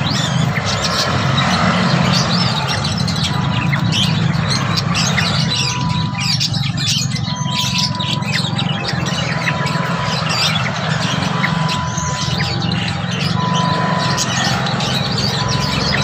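Many caged songbirds chirping and twittering together in quick, overlapping calls, over a steady low hum.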